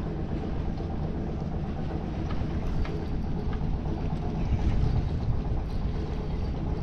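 Fishing boat's engine idling, a steady low rumble, with a few faint ticks.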